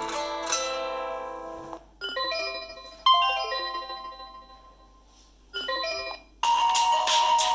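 BlackBerry KEY2 stock ringtones and alert tones playing one after another: short chiming melodies that each ring and fade out, with brief pauses between them. Near the end a louder, busier electronic tone begins.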